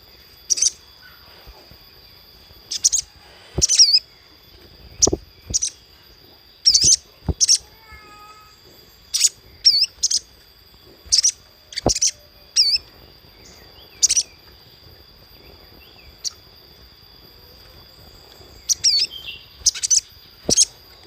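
Spiderhunter (sogok ontong) calling: sharp, high chips given singly or in quick clusters of two or three, at irregular intervals, over a faint steady high-pitched hum.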